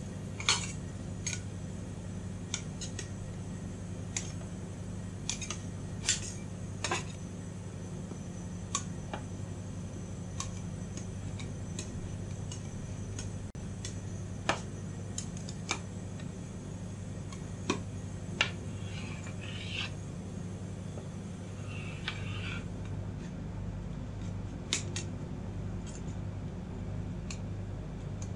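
Metal spatula clicking and scraping on the frozen steel plate of a rolled-ice-cream pan as the ice cream sheet is cut into strips and pushed into rolls: irregular sharp metal clinks, with a couple of short scrapes past the middle. A steady low hum runs underneath.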